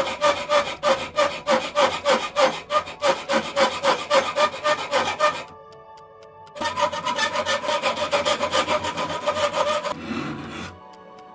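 Hand file rasping back and forth over a rusted iron knuckle duster held in a vise, in quick even strokes, about four a second. The filing stops for about a second midway, then resumes, and dies away near the end as background music comes up.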